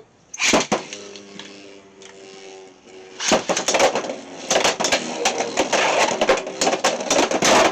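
Beyblade X spinning tops launched from a ripcord launcher with a sharp rip about half a second in, then spinning in the stadium with a steady whir. From about three seconds in they clash and clatter rapidly against each other and the stadium.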